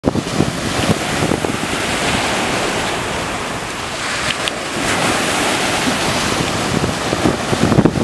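Sea surf breaking and washing up the shore, with wind buffeting the microphone in gusty low rumbles.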